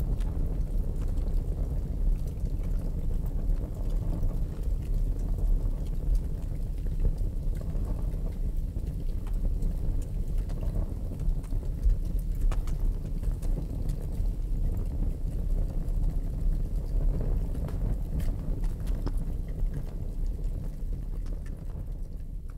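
Paper and sheet music burning in an open fire: a steady low rush of flame with scattered sharp crackles.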